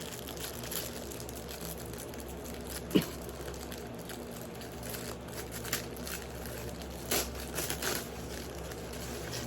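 Packaging being handled and opened, with scattered crinkling and rustling. A single sharp click or snap about three seconds in is the loudest sound, and a few more crinkles come near the end.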